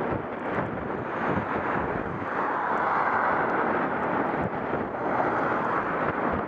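Wind rushing over a bicycle-mounted camera's microphone while riding, with the noise of a car that has just overtaken the bicycle and is pulling away ahead, loudest from about two seconds in.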